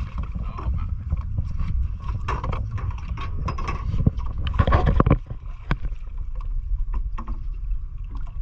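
Wind and water noise around a small open fishing boat, with scattered knocks and clatter on the deck that are loudest about four to five seconds in.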